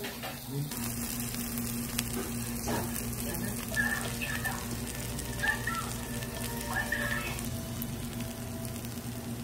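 Pork belly and kimchi sizzling in rendered pork fat on a foil-lined grill plate, a steady crackle of frying over a low, steady hum.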